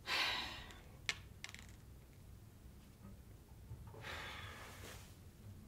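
A person breathing out heavily in a sigh, with two small clicks about a second later, then a second, longer exhale about four seconds in.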